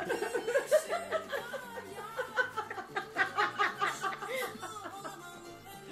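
Several people laughing together, with faint music underneath.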